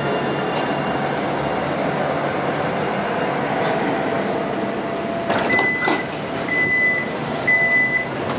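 Steady rumble of a tram, with three evenly spaced high beeps about a second apart in the second half, just after a couple of sharp knocks.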